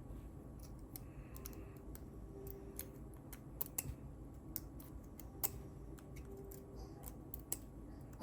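Irregular small metallic clicks and ticks of a lock pick and tension wrench working the pins of a pin-tumbler lock, with a few sharper clicks about halfway through and near the end.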